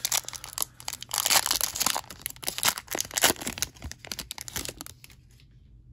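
Crinkly wrapper of a football trading-card pack being torn open and pulled apart by hand: a dense run of crackles and rips that dies away about five seconds in.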